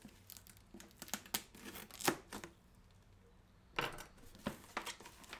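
A cardboard box and its packing peanuts being handled and opened by hand: irregular scrapes, rustles and tearing sounds, with a pause of about a second in the middle.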